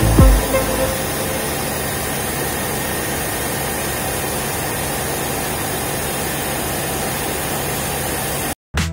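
Steady, even noise of a helicopter's engine and rotor heard from inside the cabin in flight, cutting off abruptly near the end.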